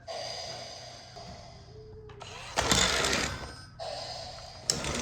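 Remote-control Thomas the Tank Engine toy train playing its electronic sound effects through a small speaker: a bell-like ringing, then two bursts of hiss.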